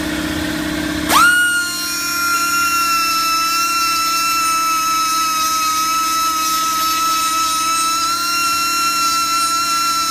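Small high-speed rotary grinder with a mounted grinding stone grinding steel angle iron. After a low hum, it spins up about a second in with a sharp rising whine, then holds a steady high whine as the stone bites into the steel.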